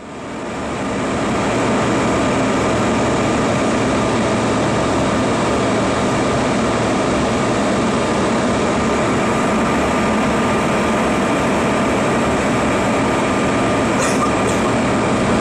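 Steady in-flight cabin noise of a Bombardier CRJ regional jet: the rush of airflow and the drone of its rear-mounted turbofan engines, with a faint steady whine on top. It fades in over the first second or two.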